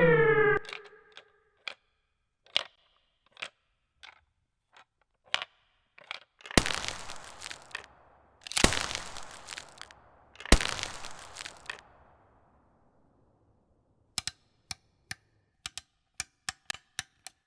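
Gunshot sound-design samples: a short falling tone, then scattered light clicks and three loud single shots about two seconds apart, each with a long decaying tail. Near the end comes a quick, irregular run of short, sharp cracks.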